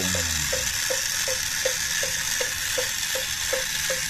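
Miniature RC paddy tractor's small geared motor running with a steady whirring hiss. Its drive gives a light, regular tick about three times a second as the mud-caked cage wheels turn.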